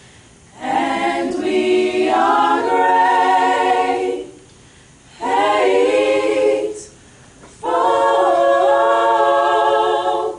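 A group of voices singing a sorority chapter hymn a cappella, with no instruments, in three held phrases separated by short pauses for breath.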